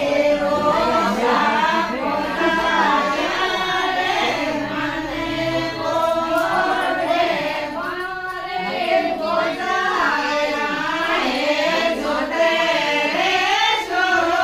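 A group of women singing a traditional wedding folk song together in chorus, voices only.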